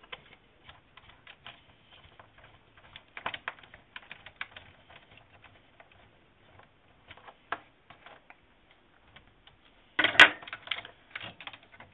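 Small hard clicks and taps of a 5/64 hex key and metal parts as the upper link is unscrewed from a 1:8 Losi 8ight buggy's front steering knuckle, with a louder clatter of parts about ten seconds in.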